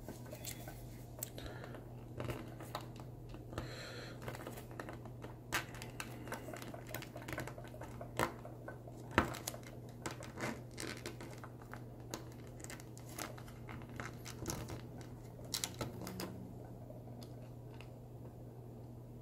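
Small plastic pieces of a miniature terrarium kit being handled and fitted together: irregular light clicks, taps and rustles, over a steady low hum.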